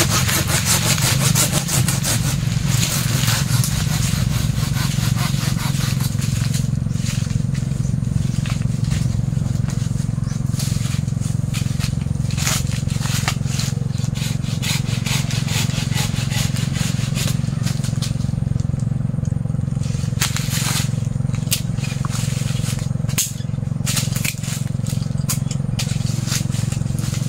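Hand pruning saw cutting dead jackfruit branches: rapid back-and-forth strokes at first, then scattered cuts, cracks and rustles of branches, over a steady low hum.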